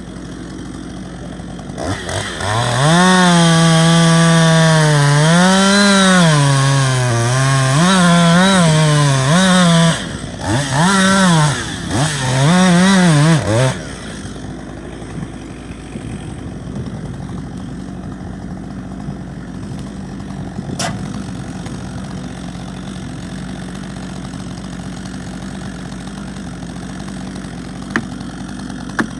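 Chainsaw running at high revs as it cuts into wood, its pitch sagging and rising under the load of the cut, with a few short throttle drops before it cuts off about fourteen seconds in. A lower, steady noise is left after that.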